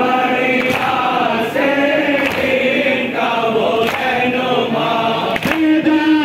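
A crowd of male mourners chanting a noha (Muharram lament) together in unison. Sharp hand strikes keep time about once a second.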